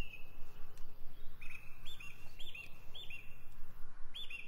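A bird calling, short high chirps in quick pairs about twice a second, stopping briefly and starting again near the end, over a steady low outdoor background hum.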